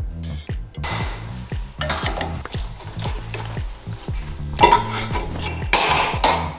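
Steel sheet-metal parts clanking and scraping against steel as they are clamped and bent by hand in a bench clamp, loudest about two-thirds of the way in. Background music with a steady beat plays underneath.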